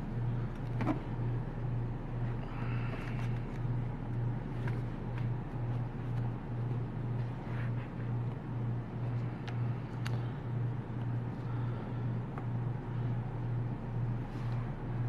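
Pages of a paper game rulebook being handled and turned, giving soft scattered rustles and small clicks. Under them runs a low steady hum that throbs about twice a second.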